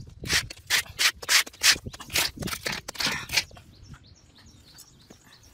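Soil scraped and scooped out of a small hole by hand, with a flip-flop and a stick, in quick strokes about three a second that stop about three and a half seconds in.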